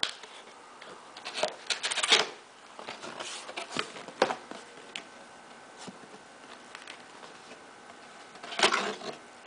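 Cardboard box being opened by hand: the lid and flaps are lifted and folded back, giving short bursts of papery scraping and rustling, about two seconds in, around four seconds, and again near the end.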